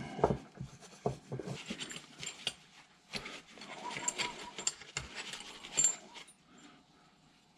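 Old metal hand tools, wrenches among them, clinking and rattling as they are picked up and sorted in a box: irregular clicks and knocks that die away in the last second or so.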